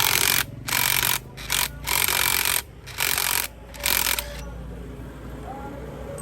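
Air tool fired in six short bursts over a few seconds, most of them well under a second, with a steady low hum underneath.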